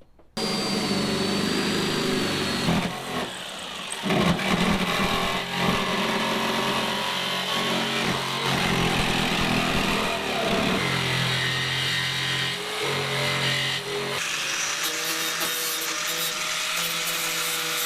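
A power tool running loud and steady with a whine whose pitch shifts a few times as the load changes; it starts suddenly just after the beginning.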